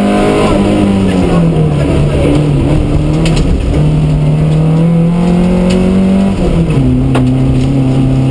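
The 1400cc engine of a Mark 2 Astra rally car, heard from inside the cabin at speed. The revs fall at first and break off briefly. They then climb steadily until an upshift about seven seconds in, and hold steady after it. A few sharp clicks cut through, one loud click just after the upshift.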